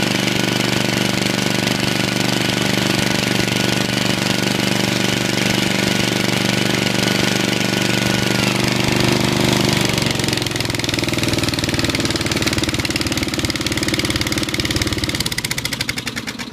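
Riding lawn tractor's engine running steadily, then throttled down about halfway through to a lower, steady speed. Near the end it is shut off and winds down, its firing pulses slowing as it dies.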